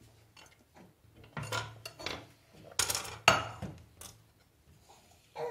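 A speckled enamel pot being handled and set down on a glass hob: a run of separate knocks and clinks, the sharpest about three seconds in.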